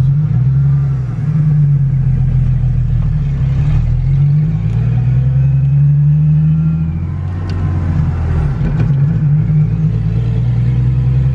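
Ford Fox-body Mustang engine pulling through the gears on a drive with its newly swapped-in T5 five-speed manual, heard from inside the car. The revs rise and fall, with short lulls about a second in and again around eight seconds.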